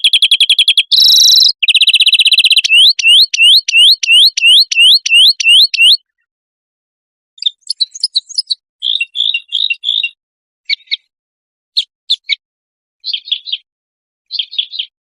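Songbird song from a compiled cage-bird training recording: a fast trill, then a run of loud rising whistled notes about two a second that stops about six seconds in. After a short pause come scattered bursts of quick chirps and twitters.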